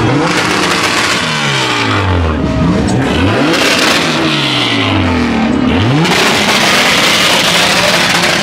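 Car engine revving hard during a burnout: the revs fall away and snap back up several times, over a steady hiss from the spinning tyres.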